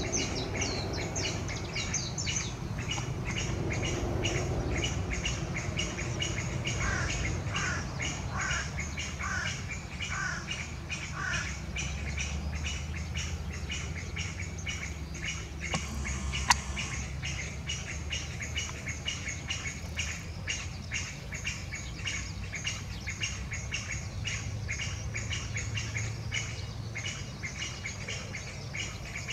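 Chinese bamboo partridge giving an unusual call: short high notes repeated a few times a second without a break, with a run of about six lower notes a third of the way in. A low rumble lies underneath, and a single sharp click comes about halfway.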